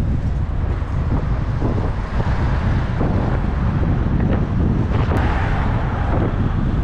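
Wind buffeting the microphone of a camera on a moving bicycle, a steady low rumble, with passing city traffic underneath.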